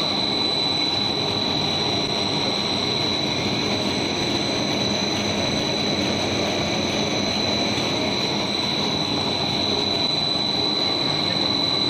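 Double-colour dog chew extruding machine running: a steady mechanical drone of motors and drive with a constant high-pitched whine.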